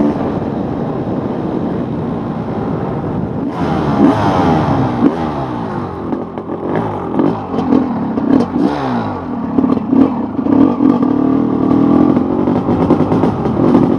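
Honda CR500's big single-cylinder two-stroke engine under way, its pitch rising and falling again and again as the throttle is opened and closed. From about four seconds in, a clatter of short clicks runs under the engine, typical of loose gravel under the tyres.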